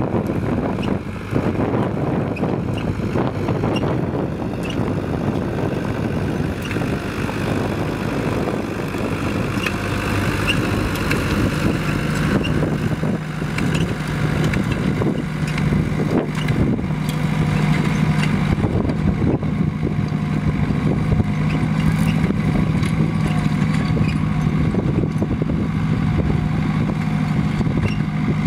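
Vineyard tractor's diesel engine running steadily under load while its belly-mounted under-vine plough (décavaillonneuse) cuts through stony soil, with scattered clicks and scraping from the blade. The engine hum grows stronger and steadier about halfway through.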